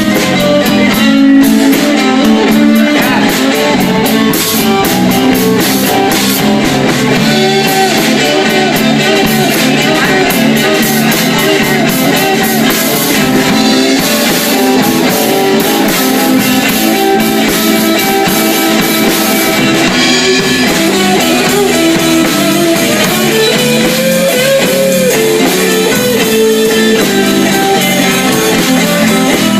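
Live blues trio of electric guitar, bass and drums playing an instrumental, with the lead guitar soloing over the band.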